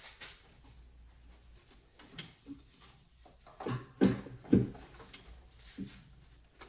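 A few short knocks and clunks of parts being worked loose by hand in a car's engine bay, the loudest pair about four seconds in.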